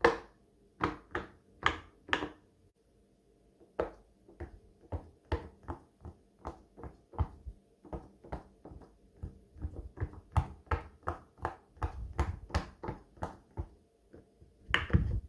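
Silicone pop-it fidget toy bubbles being pressed one after another, each giving a short pop, about two to three a second. There is a pause of about a second and a half near the start, and in the second half many of the pops carry a duller, lower thud.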